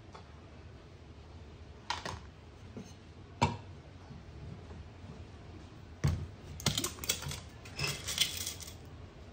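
Sharp knocks and clinks of stainless barista tools set down on a countertop and a digital scale, a few single knocks spaced a second or two apart, then a quick run of clattering clicks and rustle near the end.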